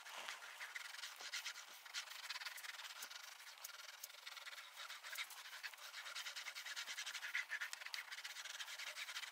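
Hand glue-roller applicator rolling wood glue back and forth across a rough OSB board: a faint, continuous sticky rubbing with fine crackling ticks.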